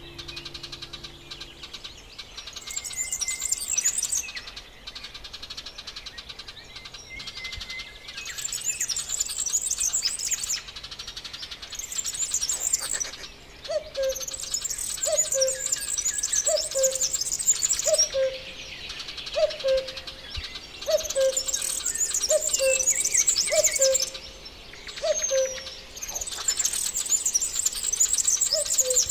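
Birdsong: bursts of rapid, high chirping a second or two long every few seconds. From about halfway, a bird repeats a short, low, falling call about once a second, a dozen or so times.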